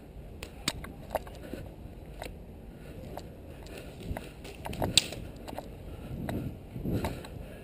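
Movement noise on a helmet-mounted action camera: a steady low rumble with irregular sharp clicks and knocks, the loudest click about five seconds in, and duller knocks near the end.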